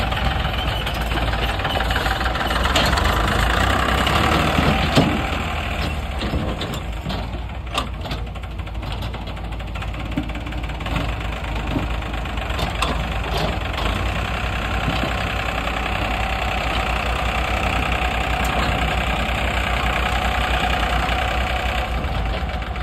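Farmtrac 45 tractor's diesel engine running with a steady clatter while it moves its loaded trailer into position, with a few sharp knocks, the loudest about five seconds in.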